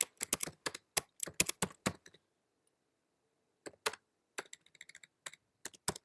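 Typing on a computer keyboard: a quick run of key clicks for about two seconds, a pause, then more scattered keystrokes from a little past halfway.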